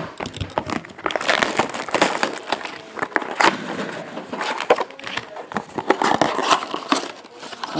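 Plastic shrink wrap crinkling and tearing as a sealed trading card box is unwrapped and opened by hand, with the cardboard box and its foil packs handled and set down. The crackling is irregular and runs on throughout.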